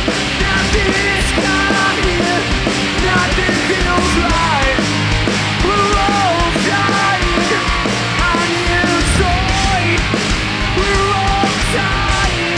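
Live rock band playing an instrumental passage: electric guitar, bass guitar and drums, loud and steady, with a melody line winding over the top.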